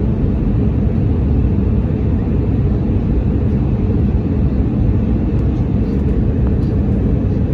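Steady, loud, low rumble of an airplane cabin in flight: engine and airflow noise heard from inside the cabin.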